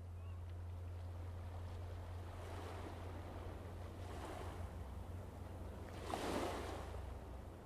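Small waves washing in, with three rising-and-falling surges of rushing water, the loudest about six seconds in, over a steady low hum.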